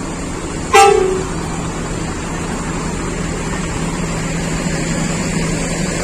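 A bus horn gives one short, loud toot under a second in, dropping slightly in pitch as it ends. Bus engines keep up a steady low hum after it.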